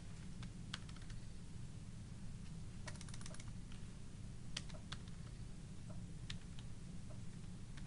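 Computer keyboard keystrokes: scattered single key clicks, with a quick run of several keys about three seconds in. A steady low hum sits underneath.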